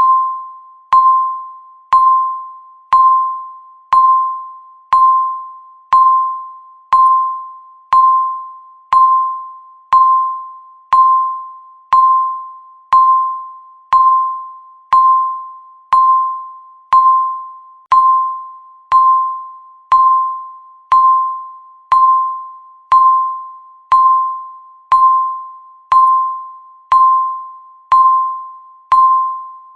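Countdown timer beep sounding once a second, about thirty times: the same high electronic tone each time, starting sharply and fading away before the next.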